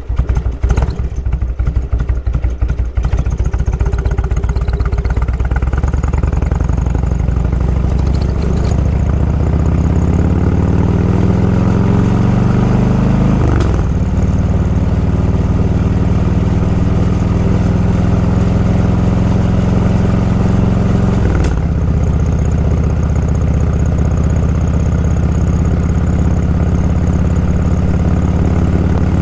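Motorcycle engine pulling away at low revs and climbing in pitch as it accelerates. The pitch drops sharply at a gear change about 14 seconds in, dips briefly again about 21 seconds in, and the engine otherwise runs steadily at cruising speed.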